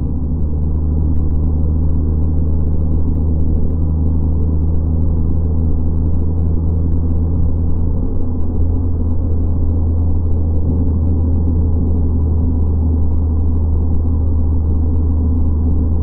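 Steady low rumble of a car's road and engine noise heard from inside the cabin while cruising on an expressway. A low hum in it drops out about halfway through.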